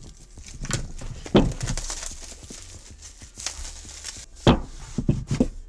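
Clear plastic shrink wrap being torn and peeled off a boxed pair of earphones, crinkling, with several sharp knocks of the box against a wooden table.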